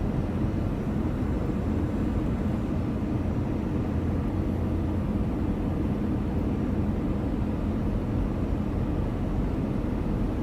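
Steady in-flight cabin noise of an Airbus A318: a low engine drone mixed with rushing airflow, heard from inside the passenger cabin during the approach.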